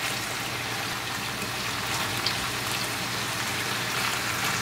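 Chicken thighs and halved baby potatoes sizzling steadily in a frying pan, with the low hum of a kitchen range-hood fan beneath.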